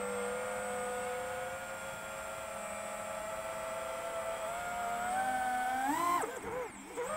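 FPV drone's electric motors and propellers whining steadily. The pitch climbs about five seconds in, then drops and wavers sharply as the throttle is chopped, and rises again near the end.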